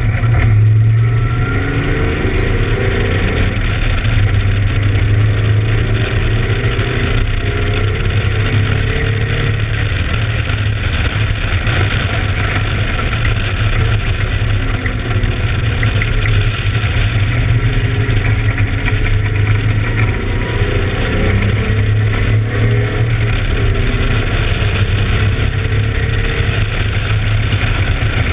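Camaro's engine running hard on lap, revving up and down repeatedly, while it has a misfire.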